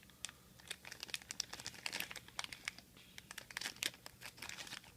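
Small plastic sticker bag crinkling and crackling in the hands, a run of quick irregular crackles, as the tightly packed bag is worked at to get the stickers out.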